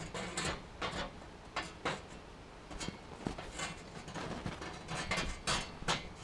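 Hammer blows on a heated steel motor-shaft rod resting on a log anvil, as the rod is knocked straight: about ten separate, irregular knocks.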